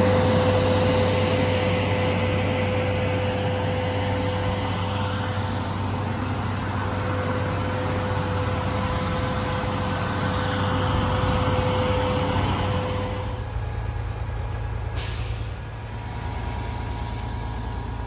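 Concrete boom pump truck's diesel engine running steadily under load, with a constant whine over a low drone. About 13 seconds in it falls to a quieter, lower hum, and a short hiss comes a couple of seconds later.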